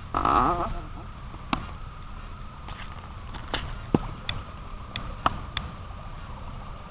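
RC model boat's motor running with a steady high whine as the boat speeds across the water, over a low rumble, with several sharp clicks scattered through the middle.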